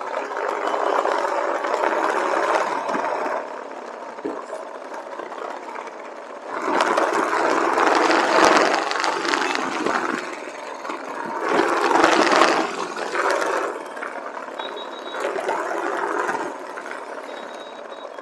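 Motorcycle running on the road, its noise swelling and easing off about four times.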